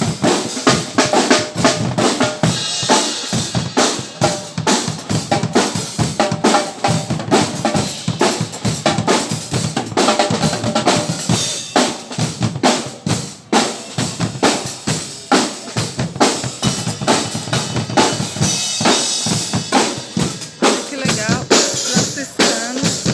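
Percussion band drumming a fast, steady rhythm, with deep bass-drum beats and sharp snare strokes.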